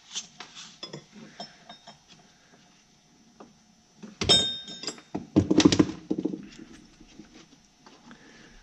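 Wire being fed down through a VW Autostick shift lever by hand: small clicks and rustles, a sharp metallic knock with a short ring about four seconds in, and a rapid rattling clatter about a second later.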